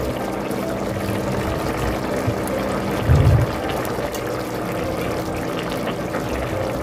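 Tofu and bean-sprout braise bubbling in its chili sauce in a pot, with a single low thump about three seconds in.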